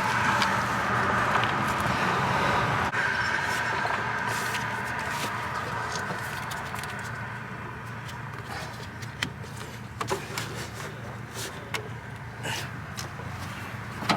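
Steady low vehicle engine hum, with a louder band of engine noise fading away over the first several seconds. Scattered sharp metallic clicks and taps in the second half, from hand tools working on the hose clamp.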